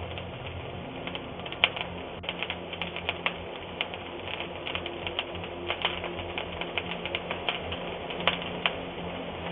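Fire crackling, with many irregular sharp pops over a low steady hum, heard through a doorbell camera's microphone.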